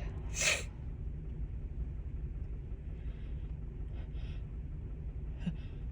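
A woman with a head cold takes one short, noisy breath about half a second in, then breathes faintly over a steady low rumble.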